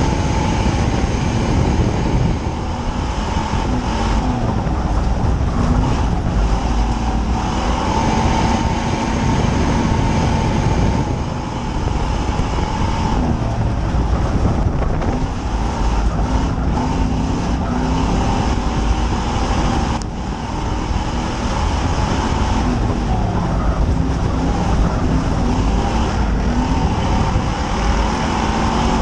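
Dirt-oval race car's engine heard from inside the cockpit at racing speed, a loud rumble whose note rises and falls. It dips briefly three times, about nine seconds apart, as the car goes around the oval.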